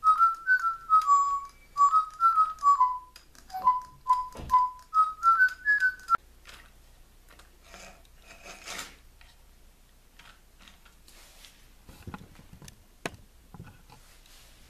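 DigiBirds electronic toy bird playing a whistled melody of short stepped notes that cuts off suddenly about six seconds in. Afterwards only faint rustling and a couple of sharp clicks.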